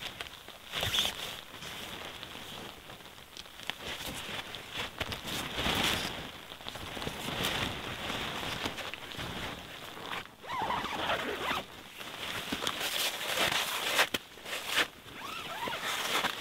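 A tent zipper being pulled in several runs, with nylon tent fabric rustling as the tent is handled.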